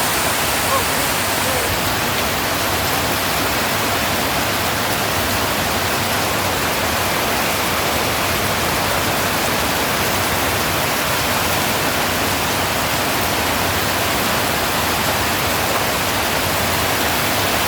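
Heavy rain falling: a loud, steady hiss.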